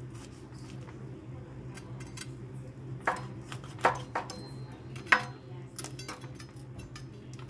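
A knife cracking through the crisp, roasted skin of a lechona (whole roast pork), giving a few sharp crackles about three seconds in and again around four and five seconds, over a low steady hum.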